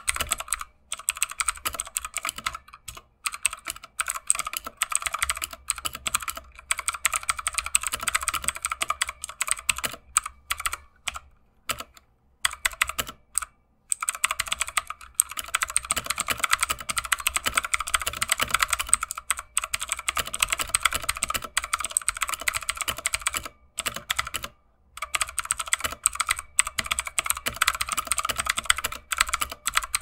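Fast typing on a Redragon K552 Kumara mechanical keyboard: a dense, steady stream of key clicks and keystrokes, broken by a few short pauses.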